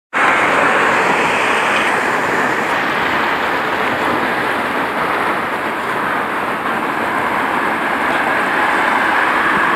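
Steady city traffic noise, a continuous wash of passing vehicles.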